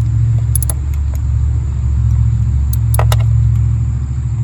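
A ratchet clicking on a spark plug socket as a new plug is snugged down by hand: a few short metallic clicks about half a second in and again around three seconds in. A steady low hum runs underneath and is the loudest sound throughout.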